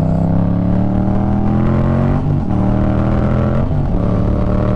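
Motorcycle engine pulling under acceleration, heard through a helmet-mounted mic: its pitch climbs slowly and drops sharply about two seconds in, then briefly again near four seconds, as with gear changes.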